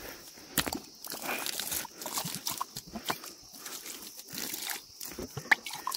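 Water from a hose pipe gushing into a steel tumbler and splashing over its rim, an irregular spattering with small knocks against the metal.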